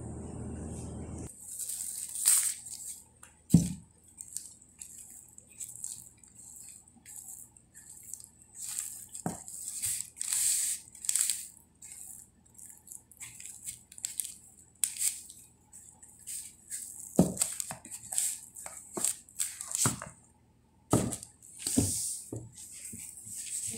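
Plastic wrap crinkling and rustling as hands pull risen pizza dough out of a covered bowl and knead it, with a few short knocks against the table. A steady low hum at the start cuts off after about a second.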